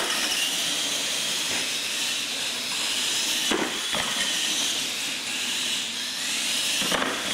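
R/C monster truck driving flat out on concrete: a steady high hiss and whine from its electric motors, gears and tyres, with short knocks about three and a half and four seconds in and again near the end.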